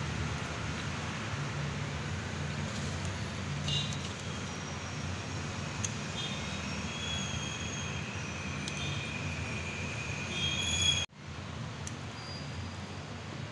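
Steady rumbling background noise, like traffic, with several high squeals in the middle; the sound drops out abruptly about eleven seconds in, then carries on at the same level.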